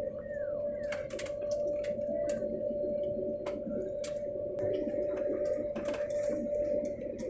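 Airliner cabin noise: a steady engine drone with a constant hum-like tone, overlaid by many irregular sharp clicks and rattles.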